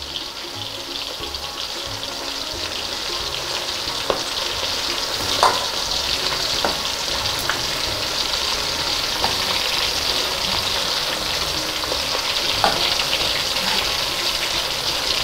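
Beef meatballs frying in hot oil in a wok: a steady sizzle that grows slightly louder, with a few short clicks.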